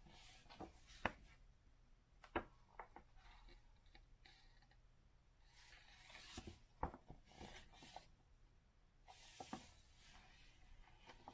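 Faint rustling of thick glossy paper as pages of a large hardcover book are lifted and turned, with several light sharp clicks of paper and fingers against the pages.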